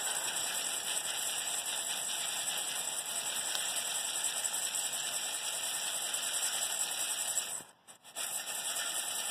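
Freshly roasted coffee beans stirred by hand in a stainless steel bowl to cool them, over a steady rushing hiss. The hiss cuts out for a moment about eight seconds in.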